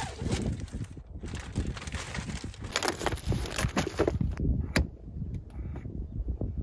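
Rustling, scraping and knocking as a car-camping levelling mat is handled and fitted onto a rear car seat. A sharp click comes about five seconds in.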